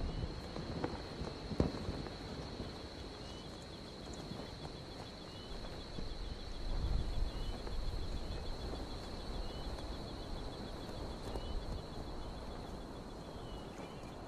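Outdoor nature ambience: a steady high-pitched drone with faint short chirps about once a second, over a low rumble.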